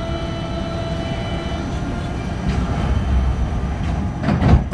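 Lille metro train, a rubber-tyred automated VAL, making a steady low rumble in an underground station, with a short loud burst of noise near the end.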